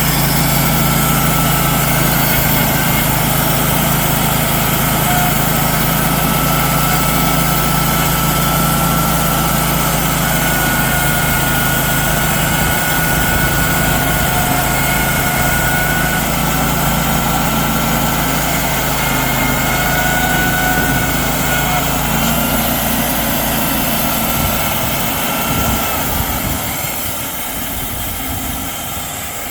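Portable sawmill's gasoline engine running steadily, with a high whine over it; about 24 seconds in the engine's low note drops away and the sound fades near the end, as if the mill is throttled down.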